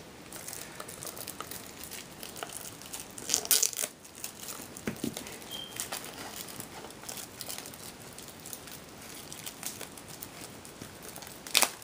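Clear plastic shrink-wrap crinkling as it is peeled and pulled off a booster box by hand, with louder crackles about three and a half seconds in and again near the end. The wrap is tough to get off.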